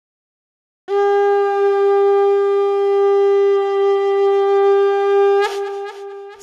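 Conch shell (shankh) blown in one long, steady note that starts about a second in and breaks and wavers near the end.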